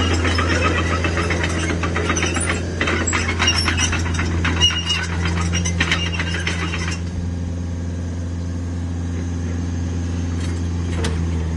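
Hitachi Zaxis 50U mini excavator's diesel engine running steadily while the machine travels on its crawler tracks, with squealing and clattering from the undercarriage. About seven seconds in the squeal and clatter stop, and the engine runs on alone.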